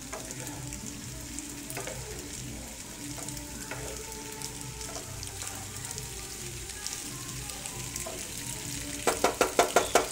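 Macaroni and vegetables sizzling in a non-stick frying pan on high flame while a wooden spatula keeps stirring and scraping through it. About a second before the end comes a quick run of loud knocks of the spatula against the pan.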